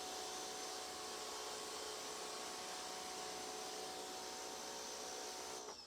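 Pressure washer running: a steady hiss of spray over the machine's hum. Near the end it cuts off suddenly and the motor winds down in pitch.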